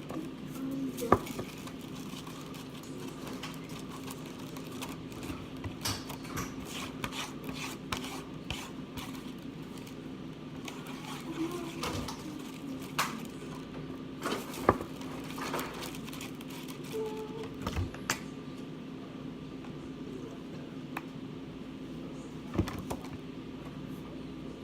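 Scattered clicks, taps and knocks of containers and utensils being handled while slime is mixed, over a steady low hum.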